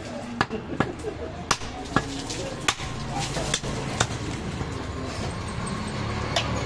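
Large butcher's knife chopping goat meat against a wooden log chopping block: sharp single knocks, about eight in all, coming every half second or so at first and more sparsely after four seconds in. Voices and a low hum sit behind them.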